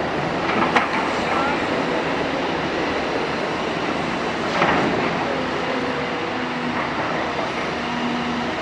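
Cat 325D hydraulic excavator's diesel engine and hydraulics running steadily as the machine swings and works, with a couple of short clanks, one about a second in and another a little past the middle.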